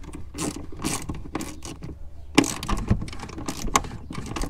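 Socket ratchet clicking in short runs as it tightens a tail light mounting nut down onto its stud, with a louder knock about two and a half seconds in.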